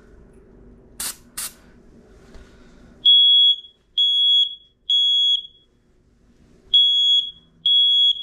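Two clicks about a second in, then a smoke alarm sounds its test signal from about three seconds. It gives high-pitched beeps in the temporal-three pattern: three half-second beeps, a pause, then three more, showing that the alarm works.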